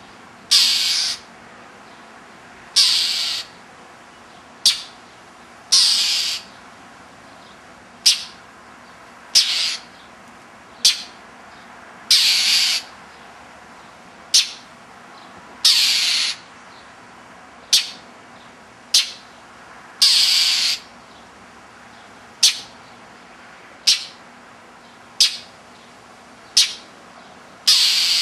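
Northern mockingbird giving harsh, raspy scolding calls, one about every second and a bit, some clipped and some drawn out. These are alarm calls at a stalking cat.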